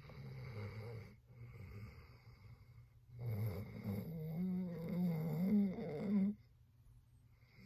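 A sleeping dog snoring: a couple of softer snores, then a longer, louder snore about three seconds in that carries a wavering whine-like tone before it cuts off, followed by quiet breathing.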